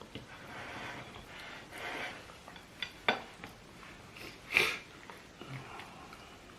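Spoon and cutlery clinking against a plate during a meal, with a sharp clink about three seconds in and a louder short sound about a second and a half later.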